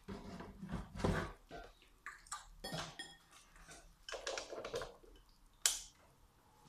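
Kitchen utensils and bowls clinking and knocking at irregular intervals as cookie mixture is worked at the counter, with a brief ringing clink about three seconds in and a sharp click shortly before the end.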